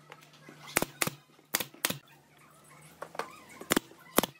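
Pneumatic brad nailer firing nails into pine slats: six sharp shots, in three quick pairs.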